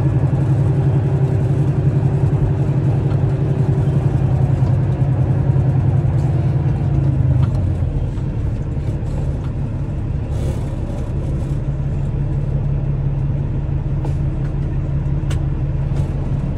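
Semi truck's diesel engine running as the truck creeps along at low speed, heard from inside the cab: a steady low rumble that eases off a little about halfway through.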